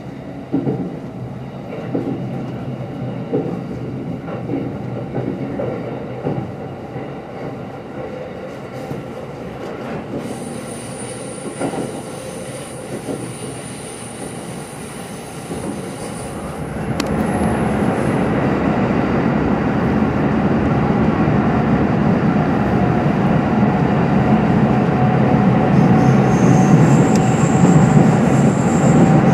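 E231-series electric train running, heard from inside the car: wheels knocking over rail joints, with a thin high wheel squeal that comes and goes. About two thirds of the way through, the running noise rises sharply and stays louder and rumblier.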